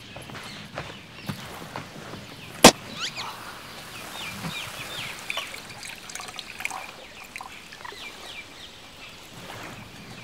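Sparkling wine being poured into a glass, trickling and gurgling with short changing-pitch notes, after a single sharp pop about two and a half seconds in.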